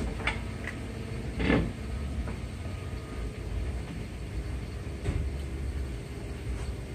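Steady low rumble with a few light metal knocks and a louder short scrape-clunk about a second and a half in, as a steering knuckle with its brake caliper is fitted onto the outer end of a front CV axle.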